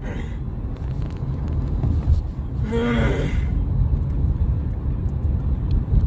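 Steady low road and engine rumble heard from inside a moving car's cabin. About three seconds in, a single short held vocal sound of under a second rises above it.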